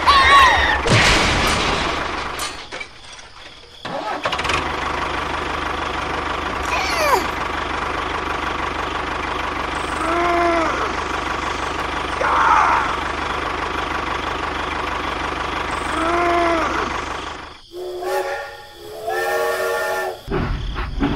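A vehicle engine running steadily. Short rising-and-falling tones sound over it three times, and a steady horn-like tone comes in near the end.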